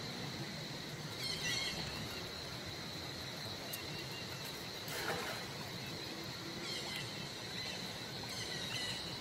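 Steady outdoor background noise with a constant high-pitched whine, broken by a few short, high chirping calls about a second in, around five seconds in, and twice near the end.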